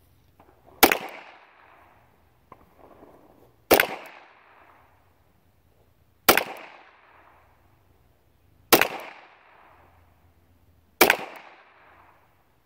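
High Standard H-D .22 LR semi-automatic pistol firing five deliberate single shots, about two and a half seconds apart, each a sharp crack followed by a short echo that dies away.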